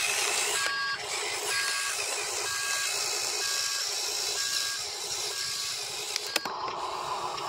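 Huina RC dump truck backing up, its sound module sounding a reversing beeper about once a second, six beeps, over a steady hiss. The beeping stops near the end, and a sharp click follows.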